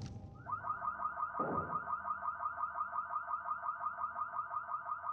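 A car alarm sounding: a fast, even run of short rising electronic chirps, about seven a second, starting abruptly about half a second in.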